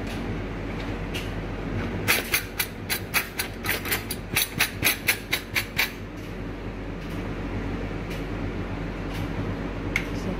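Metal cutlery clinking in a dishwasher cutlery basket as it is handled: a quick, uneven run of clinks from about two seconds in, lasting some four seconds, with a couple more near the end, over a steady low hum.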